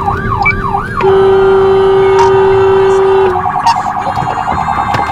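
Emergency vehicle siren changing modes: a fast rising-and-falling yelp for the first second, then a loud steady horn tone for about two seconds, then a rapid pulsing warble.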